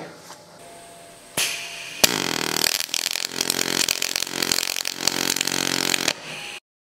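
Pulsed MIG welding arc on stainless steel, running 308 stainless wire under argon with 2% CO2. A short hiss comes first, then the arc strikes with a sharp crack about two seconds in and runs as a steady crackling buzz for about four seconds before it stops.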